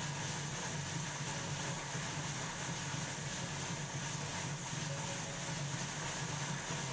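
Indoor bike trainer with a road bike's rear wheel spinning on its roller under steady pedalling, a constant whirring drone with a steady hiss over it.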